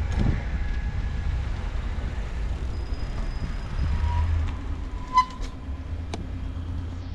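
City street traffic heard from a moving bicycle: a steady low rumble of passing cars and road noise with some wind on the microphone. A short high beep sounds about five seconds in, and there is a single click a second later.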